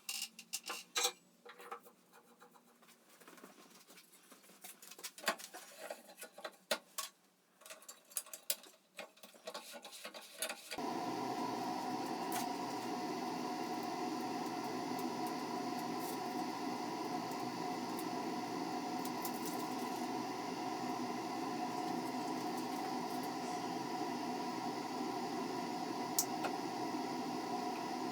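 Light scratching and clicking as the welding wire and its reels are handled. About eleven seconds in, a steady machine hum with a few held tones starts and runs on evenly.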